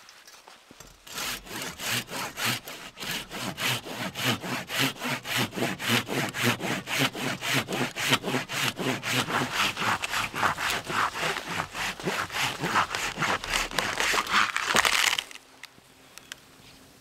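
Folding hand saw cutting into a snow-covered conifer, sawing back and forth at a steady pace of about three to four strokes a second. The sawing stops suddenly near the end.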